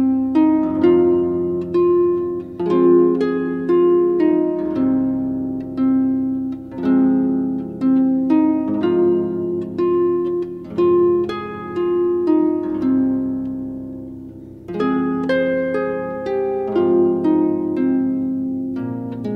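Instrumental background music on plucked strings: a gently repeating melody of notes that each ring and fade.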